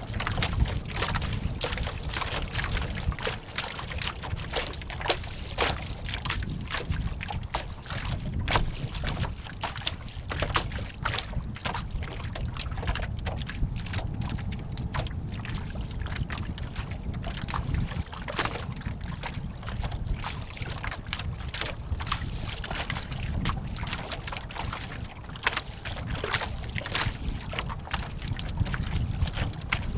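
Water slapping and splashing against the hull of an 11-foot Snark sailboat under way, in frequent irregular slaps, over a steady low rumble of wind on the microphone.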